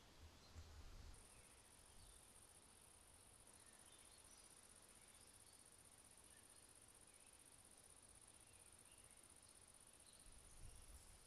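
Faint, steady high-pitched chirring of field insects starting about a second in, with a few faint bird chirps over it.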